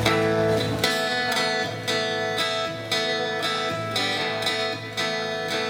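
Music without singing: a strummed guitar playing chords in a steady rhythm, an instrumental passage between the sung lines of a song.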